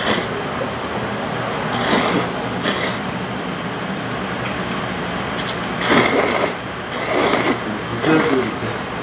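Noodles being slurped in several short, loud bursts, over a steady background hiss.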